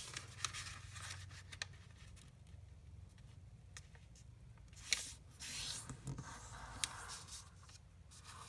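A square sheet of origami paper being folded in half and creased by hand: soft rustling and sliding of the paper, with fingertips rubbing along the fold, and a few light ticks.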